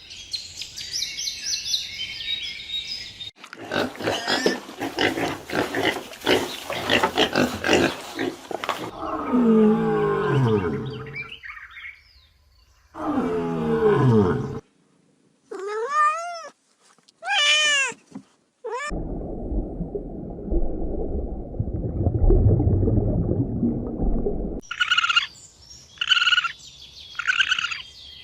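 A run of different animal calls cut one after another. High chirping comes first, then a rapid chattering, two calls falling in pitch, and two short wavering high calls. A low rough sound follows for about six seconds, and repeated short calls come near the end.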